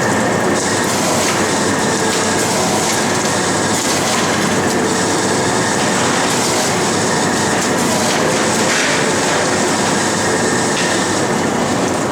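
Asahi Machine mackerel filleting machine running, a loud, steady mechanical clatter with no pauses.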